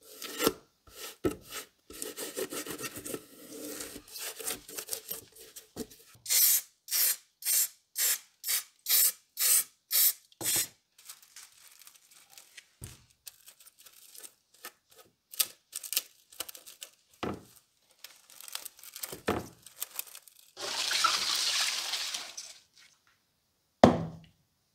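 Aluminium foil tape pressed and rubbed down by a gloved hand inside a clear plastic gumball globe, crinkling at first, then a run of about nine evenly spaced strokes, roughly two a second. After that come scattered light taps, a rustle lasting about two seconds, and a single knock near the end.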